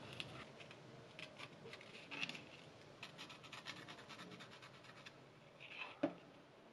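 Fine sandpaper rubbed against the worn metal contact of a mouse's micro switch, a faint rapid scratching in quick strokes, with one louder tick about six seconds in. The sanding cleans the worn contact that makes the mouse double-click.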